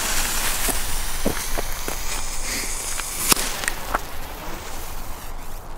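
Lit fuse of a small whistling firework fountain (Alien Sirene) hissing and sputtering, with scattered sharp pops and crackles and footsteps in snow. No whistle comes: the firework is failing to work as it should.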